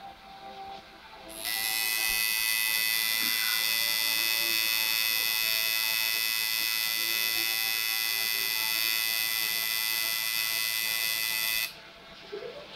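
Coil tattoo machine buzzing steadily as it works ink into the skin of a hand. It starts about a second and a half in and cuts off sharply near the end.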